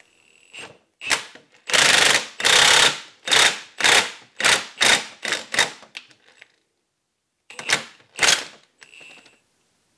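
Power impact wrench driving the screw of a ball joint press in short bursts, about a dozen, the two longest near the start and two more near the end, pressing a new universal-joint cap through the front axle shaft's yoke ear until it seats.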